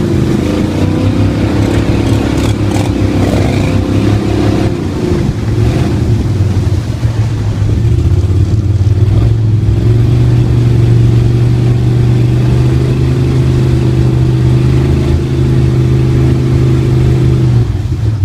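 Gator-Tail mud motor running with the boat under way. Its engine note wavers for the first several seconds, then holds a steady pitch.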